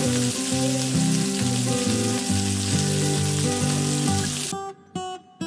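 Chicken drumsticks sizzling as they brown in hot oil in a stainless steel frying pan, with background music underneath. The sizzle cuts off suddenly about four and a half seconds in, leaving only the music.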